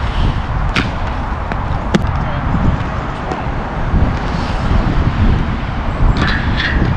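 Inline skate wheels rolling on concrete, with a few sharp clacks of the skates striking the concrete and ledge, the clearest about one and two seconds in, over a steady low rumble.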